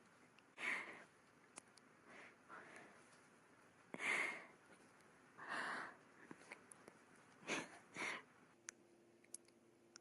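A woman breathing: about six short, sharp, noisy breaths, the loudest about four seconds in, with small clicks between them.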